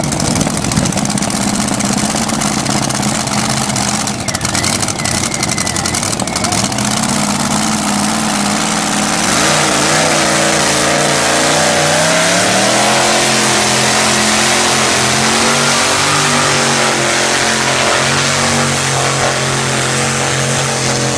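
Supercharged engine of a tractor-pulling vehicle running at a steady note, then revving up about nine seconds in as it hauls the weight-transfer sled. Its pitch climbs over a few seconds, then holds high and loud through the rest of the pull.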